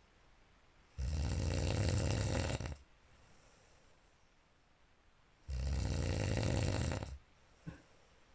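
A sleeping person snoring loudly: two long, rattling snores about four and a half seconds apart, each lasting under two seconds, with quiet between them.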